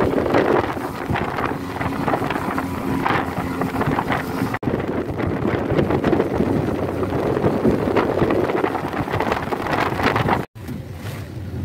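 Wind buffeting the microphone over the rush of spray and water from a speedboat running at speed, with its 75-horsepower outboard motor under the noise. The sound drops out briefly twice; after the second dropout, near the end, it is quieter, with a low steady engine hum.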